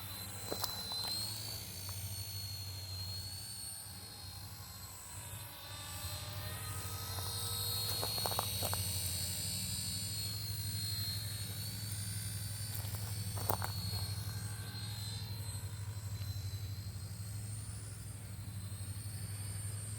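RC helicopter flying: a steady low rotor hum under a high motor whine that wavers up and down in pitch as the throttle changes, with a couple of short clicks.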